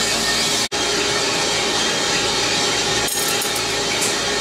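Feima Pro 1K drum coffee roaster running mid-roast with the burner on: a steady rushing of the beans tumbling in the rotating drum, with a low hum under it. A brief dropout cuts the sound less than a second in.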